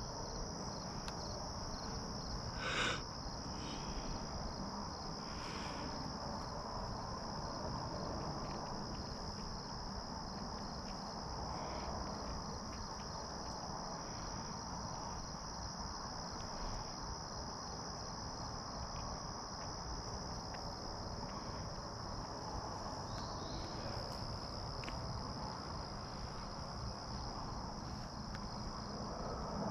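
Crickets singing in a steady high-pitched trill over a low background hiss, with one brief rustle about three seconds in.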